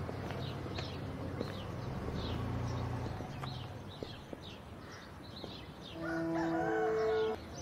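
A rooster crows once near the end, a loud drawn-out call, over steady chirping of small birds. A low vehicle-engine hum runs under the first few seconds and fades out about three seconds in.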